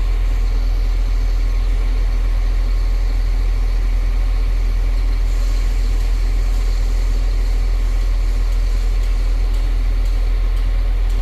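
Caterpillar 950H wheel loader's freshly overhauled C7 diesel engine idling steadily, a couple of minutes after a cold start.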